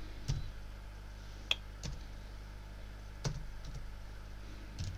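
About half a dozen separate key presses on a computer keyboard, spaced a second or so apart, over a steady low hum.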